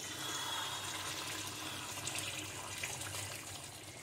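Chicken and chickpea masala gravy bubbling and sizzling in a kadhai while a steel spatula stirs it, a steady wet hiss.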